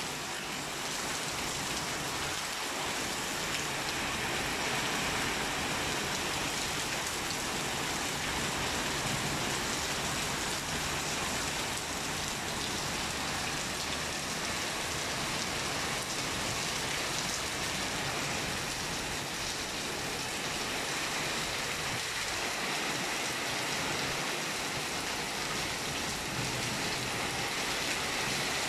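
Rain falling steadily, an even, unbroken hiss of rain with no change in strength.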